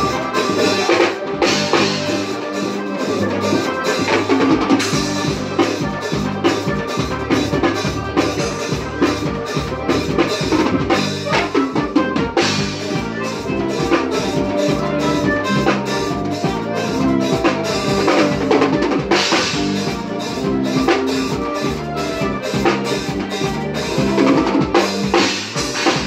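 Live forró band playing: a drum kit keeps a steady, driving beat of bass drum and snare under electronic keyboard and a stepping bass line.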